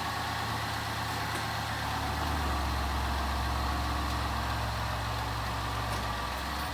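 Ford Escape 3.0 L V6 idling steadily through an exhaust freshly repaired by welding a cracked muffler inlet and broken hangers: the leak is sealed and it runs much quieter.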